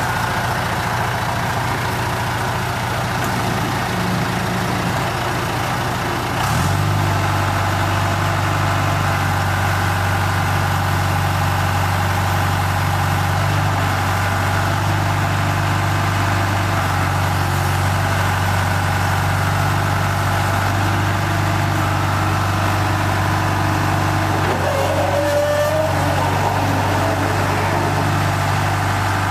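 John Deere 310G backhoe's four-cylinder 4045 diesel engine running, stepping up to a higher engine speed about six seconds in and holding there steadily.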